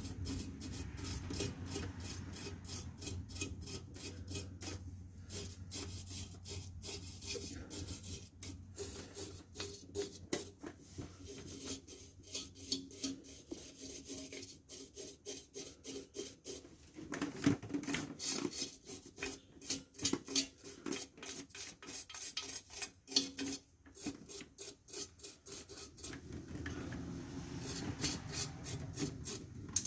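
Steel wire brush scrubbing the metal of a car's rear drum-brake assembly in rapid back-and-forth strokes, a steady rasping that runs in uneven bursts.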